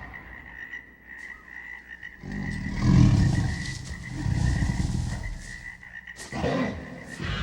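Jungle sound-effect ambience: a steady, high, insect-like drone runs throughout, with two spells of low, rattling, croaking growls between about two and five and a half seconds. A couple of sharp sounds come near the end.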